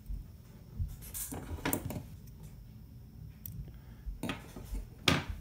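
Handling noise at a fly-tying vise: a few short clicks and knocks, a small cluster about a second and a half in, then two more near the end, the last the loudest.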